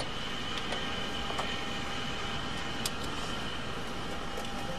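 Steady jet aircraft engine noise: a low hum with a faint high whine, and a couple of faint ticks.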